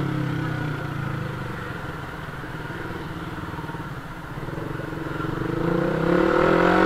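Motorbike engine heard from the rider's helmet while creeping through traffic: it eases off and runs quietly, then the engine note rises again near the end as the bike picks up speed.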